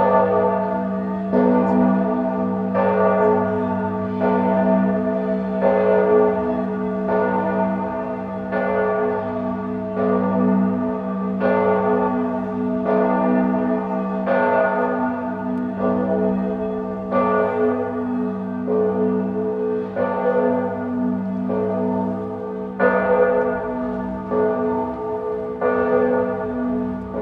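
Church bell ringing, struck about every one and a half seconds, each strike ringing on into the next over a steady low hum.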